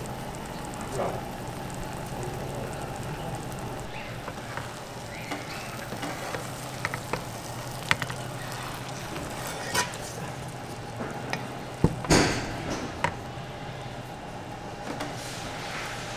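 Ostrich egg frying in oil in a nonstick pan, a steady sizzle. A wooden spatula scraping and clicking against the pan a few times, loudest about twelve seconds in.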